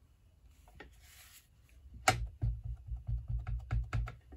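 Clear acrylic stamp block with a photopolymer stamp tapped repeatedly onto a Stampin' Up! Lost Lagoon ink pad to ink it: about eight quick taps, roughly four a second, starting about halfway through.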